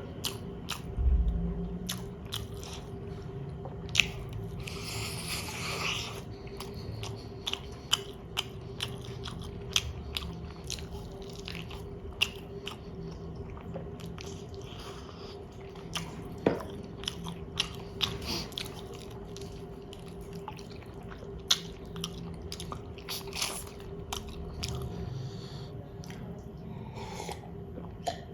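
Close-miked chewing and biting of chicken biryani: wet mouth clicks and smacks, with sharper crunches scattered throughout, over a faint steady hum.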